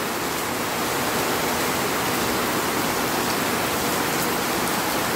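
Heavy rain pouring steadily, an even hiss.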